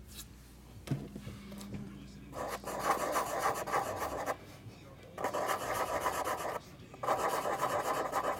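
Three long rubbing, scraping strokes of hands working the packaging of a sealed trading-card box.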